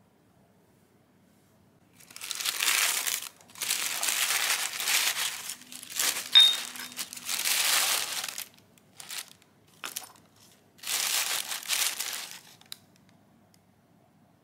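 Tissue paper rustling and crinkling in several bursts, starting about two seconds in, as a small ceramic cup is unwrapped and handled. One short, sharp clink comes about six seconds in.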